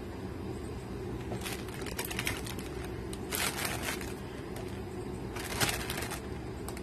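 Toy packaging rustling and crinkling in three short bursts as the toys are rummaged through in the box, over a steady low background hum.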